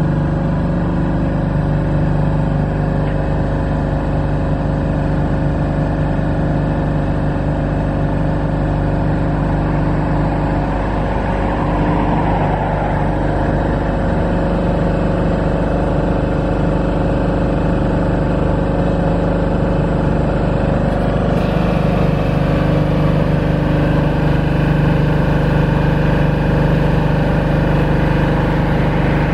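Kohler diesel engine of a lighting-tower generator set running steadily at constant speed, with its generator powering the lit lamps. A brief extra rushing noise comes in around the middle.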